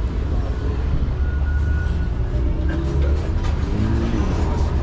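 City street ambience dominated by a steady low rumble of road traffic, with some fainter pitched sounds over it in the second half.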